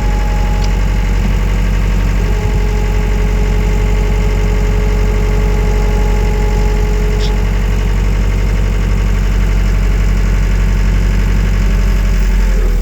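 Wacker Neuson 901S skid steer's diesel engine running steadily under load while the loader carries a full 1,000-litre container, about a tonne. A higher steady whine rides on top of the engine from about two seconds in until about eight seconds in.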